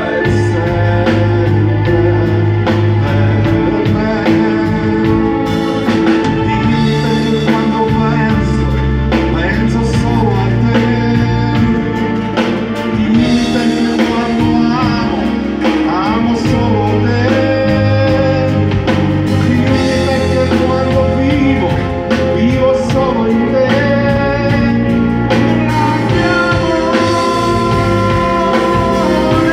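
Live band playing a pop song on electric guitar and drum kit, with a man singing through a microphone and PA.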